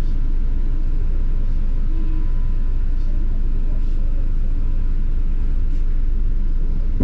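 London double-decker bus in motion, heard from inside: a steady low rumble of engine and road noise.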